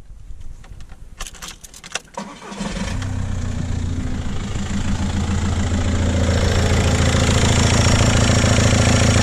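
A few light clicks, then a VW Golf Mk5 TDI diesel engine starts about two and a half seconds in and settles into a steady idle that grows louder toward the end.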